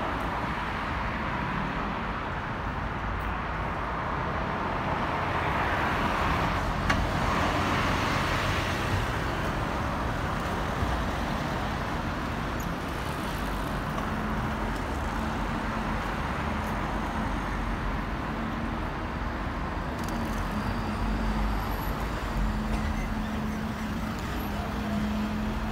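Road traffic on a busy city street: passing cars, vans and buses make a steady rumble of engines and tyres. It swells as vehicles pass close about six seconds in, and a low steady engine hum joins in the second half.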